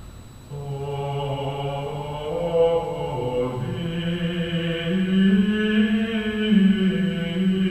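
Recorded medieval chant played back in the room: voices sing one slow melodic line in long held notes that step up and down. A new phrase begins about half a second in.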